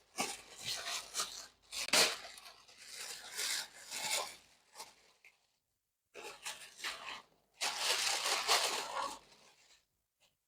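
Packaging rustling and rubbing in irregular bursts, with a brief pause a little after halfway: the taped-down user manual being pulled free from the box packing and handled.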